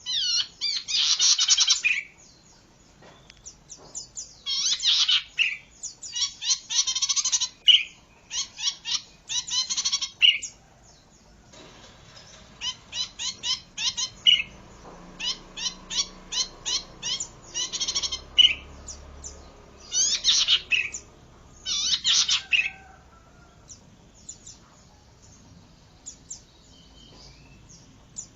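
Oriental magpie-robin (kacer) singing: loud bursts of rapid, varied whistled phrases and trills, a second or two each, separated by short pauses.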